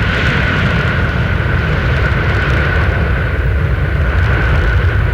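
Boeing 747 jet engines running loud and steady: a deep rumble with a high whine held at one pitch.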